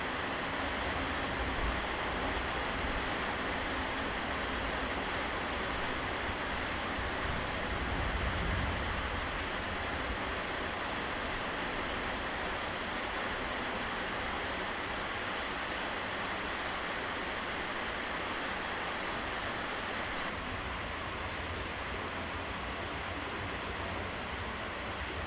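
Steady rain hiss, with a low thunder rumble swelling about eight seconds in. The rain turns slightly duller after about twenty seconds.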